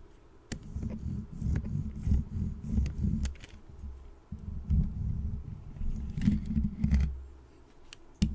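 Small toy car's wheels rolled and scraped across a microphone grille, giving a close, low rumble in two stretches with a short break about halfway through, dotted with light clicks. The rumble drops away near the end, and one sharp click closes it.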